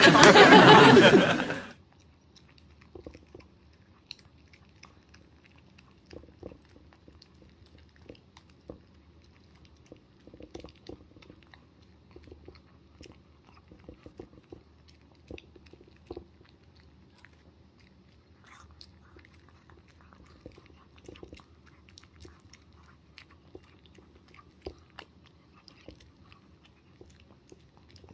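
A Pomeranian eating from a small ceramic plate: quiet, irregular chewing and crunching with small clicks of teeth and muzzle against the dish. A loud added sound effect fills the first second and a half.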